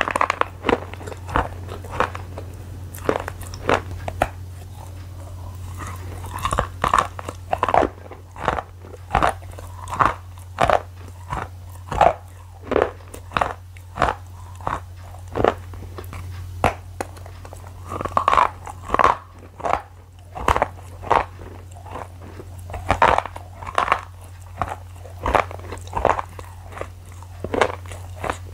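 A person chewing crunchy food close to the microphone, with open-mouthed crunches at about two a second over a steady low hum.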